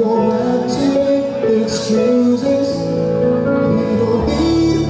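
Male singer singing a pop song live into a handheld microphone, over instrumental accompaniment, with a deeper bass line coming in near the end.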